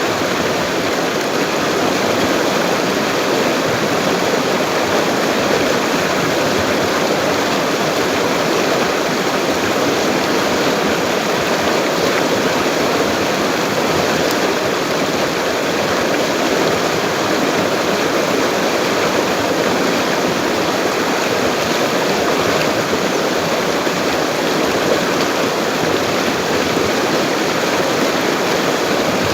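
Full, fast-flowing river running steadily: an even, unbroken rush of water at a constant level.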